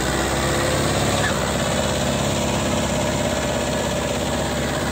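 Diesel engine of a turbo-fitted Mahindra 585 tractor running steadily.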